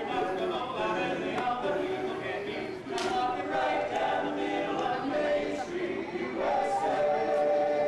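Barbershop quartet of men singing a cappella in close four-part harmony, holding a long chord near the end.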